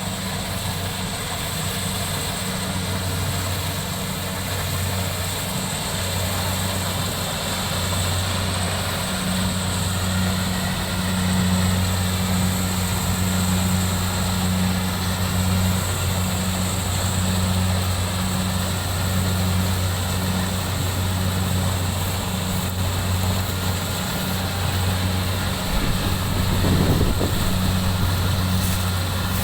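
An engine running steadily: a low, slightly pulsing drone.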